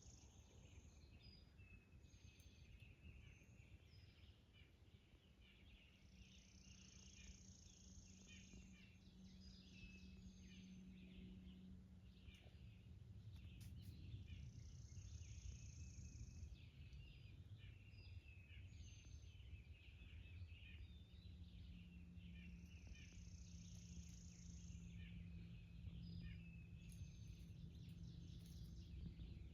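Faint birdsong from several birds calling with short chirps. One of them repeats a high song of about a second and a half roughly every eight seconds, over a low steady rumble.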